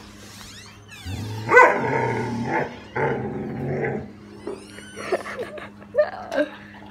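Young German Shepherd giving an angry run of growling barks lasting about three seconds, then quieter lapping and clicks at its metal bowl near the end.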